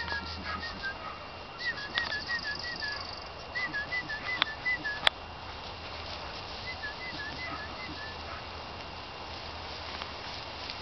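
A songbird singing short phrases of quick rising-and-falling whistled notes, four phrases a second or two apart, over a steady low rumble. A single sharp click about halfway through is the loudest sound.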